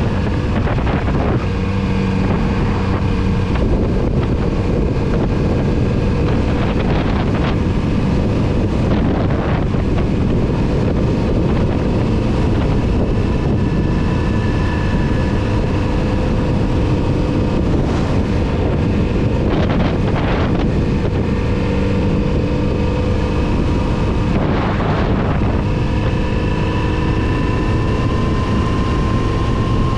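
Kawasaki Z900RS's inline-four engine running while the bike is ridden. Its pitch drifts gently up and down through the bends and climbs near the end, under heavy wind rush on the microphone.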